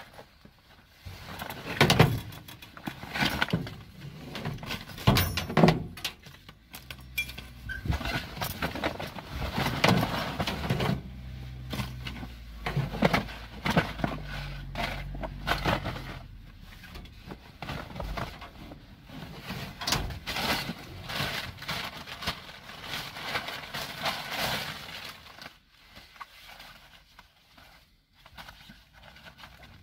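Plastic bags and rubbish rustling, crinkling and clattering in irregular handfuls as gloved hands rummage through a waste container. A low steady hum runs underneath for several seconds in the middle.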